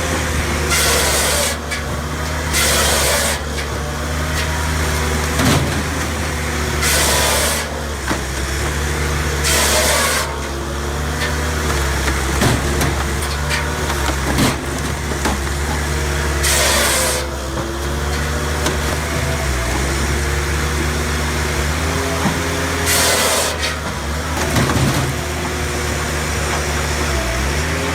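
A firewood processor's engine running steadily, with short bursts of hissing noise several times.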